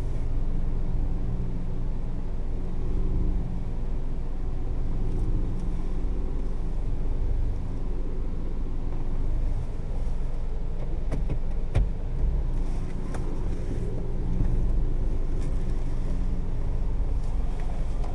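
Cabin sound of a 2012 Kia Picanto 1.0 automatic being driven: the small three-cylinder engine's steady low hum under a constant rumble, with two sharp clicks a little past the middle.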